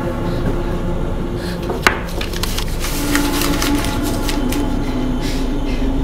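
A low, droning horror score with held tones, broken by one sharp knock about two seconds in and then a run of irregular clicks and knocks for the next few seconds.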